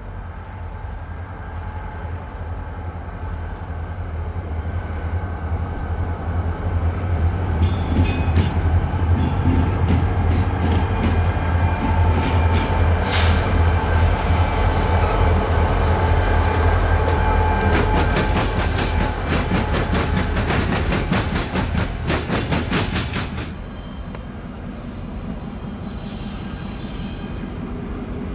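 Two diesel road-switcher locomotives approach and pass close by, their engines' low drone building up, with rapid clicking of wheels over rail joints as they go by. About three-quarters of the way through the drone drops away, and thin high wheel squeal from passing train wheels follows near the end.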